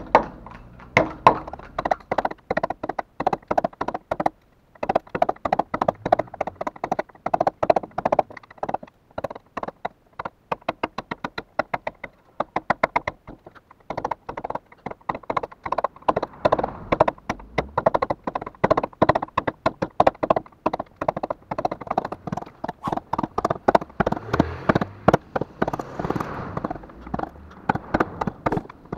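Carving chisel struck with a mallet, cutting into a wooden board: runs of quick, sharp taps with short pauses between them.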